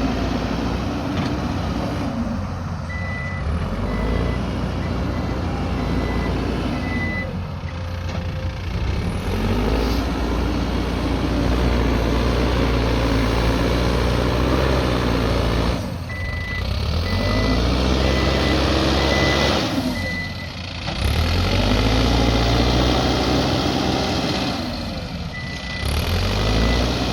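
Mahindra backhoe loader's diesel engine working under load, its revs rising and falling in repeated cycles every few seconds. Its reversing alarm beeps steadily three times in spells of a few seconds as the machine backs up.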